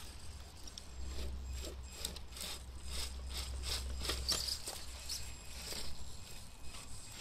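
An XR10 RC rock crawler climbing a granite crevice: irregular clicks and scrapes of its tyres and chassis against the rock, busiest in the middle, over a low rumble that stops shortly before the end.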